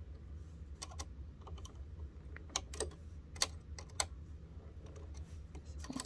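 Light metallic clicks and ticks, irregular and a fraction of a second to a second apart, as a small screwdriver works the screws of a Singer sewing machine's metal needle plate.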